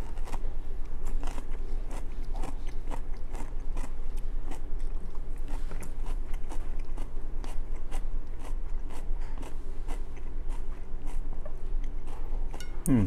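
Close-up chewing of crunchy stir-fried cabbage and rice: a string of short, sharp crunches, a few each second, over a steady low hum.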